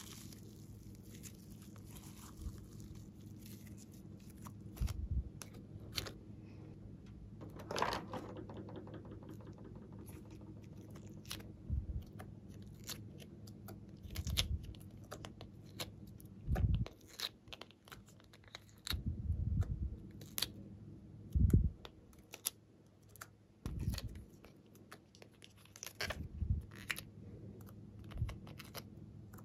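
Hands working sticky glitter slime and a plastic palette: irregular sticky crackles, small clicks and squishes, with several dull low thumps, over a faint steady low hum.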